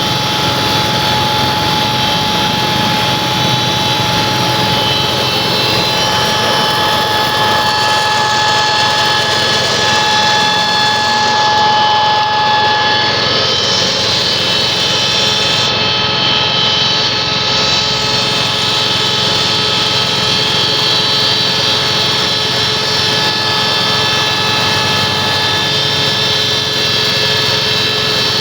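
FFC 23 disk mill running while grinding coffee: a loud, steady mechanical running noise with a whine over it that changes pitch about halfway through.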